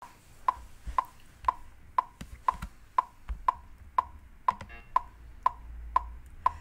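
A metronome clicking steadily at about two beats a second (around 120 beats per minute), setting the tempo for sight-singing, with a few softer knocks from handling the webcam in the first few seconds.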